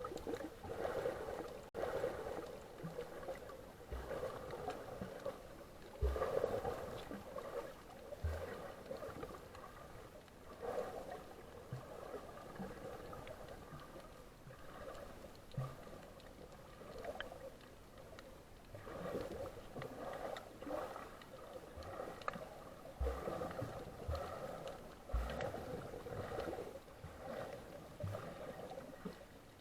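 Water sloshing and gurgling close to the microphone in uneven swells, with scattered low thumps.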